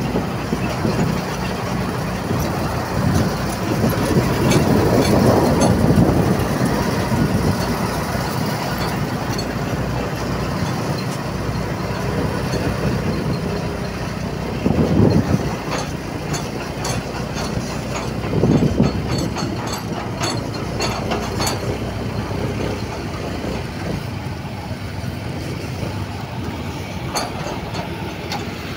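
Steady engine and road rumble of vehicles moving slowly, with a loaded cargo truck running just ahead. It swells louder a few seconds in and again twice in the middle.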